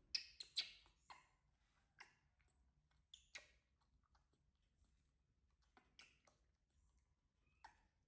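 A tangerine being pulled apart and eaten close by: small, moist clicks and crackles, a quick cluster in the first second, then single clicks every second or so.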